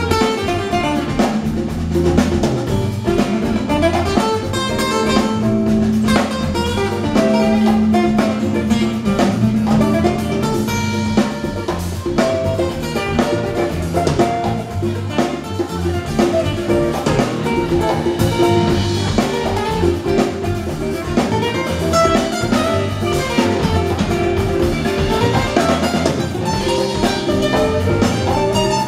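A live acoustic band playing an instrumental passage: strummed and picked acoustic guitars over bass guitar and hand drums, at a steady level.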